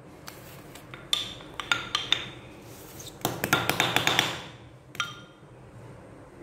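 Pair of wooden sticks clacked and tapped as improvised drumming: a few scattered sharp clacks, then a quick flurry of strikes about three seconds in, and one last clack near the end.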